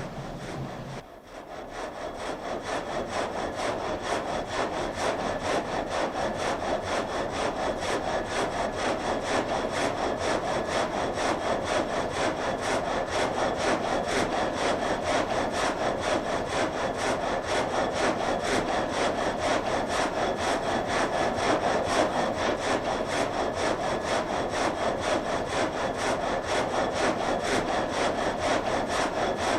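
Water-wheel-driven vertical frame saw cutting through a log, its blade sawing in a rapid, even rhythm of up-and-down strokes. The sound drops briefly about a second in, then builds up and runs steadily.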